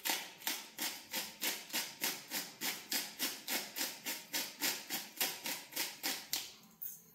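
Hand-twisted salt grinder grinding salt crystals: a steady run of crunching strokes, about three a second, that stops shortly before the end.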